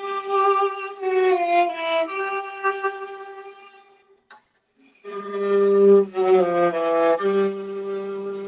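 Viola played with the bow: two short phrases of held and stepping notes, with a break of about a second between them. In the second phrase a lower note sounds under the melody.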